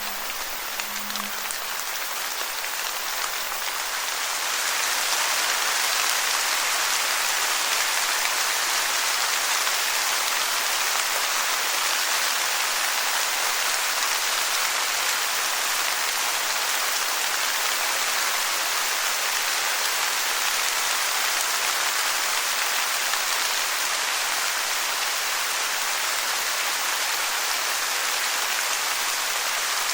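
Steady rain, a dense even hiss that grows louder over the first five seconds or so and then holds steady.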